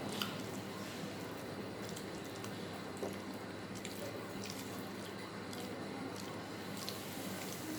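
Eating sounds: wet squishing and scattered small clicks of a mouthful of rice and curry being chewed, over a steady background hiss.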